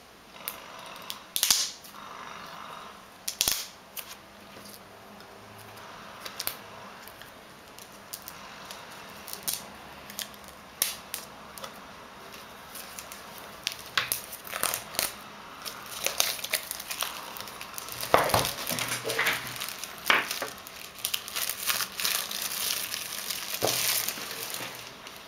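Plastic shrink-wrap on an iPhone 3G box being pierced with a pen tip and torn and peeled off: scattered sharp crackles and crinkles, sparse at first and coming thick and loudest in the last third.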